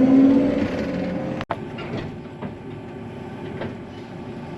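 Combine harvester running as it drives down the road without its header, a steady engine hum. About a second and a half in the sound cuts off abruptly and gives way to a quieter steady machine noise with faint scattered ticks.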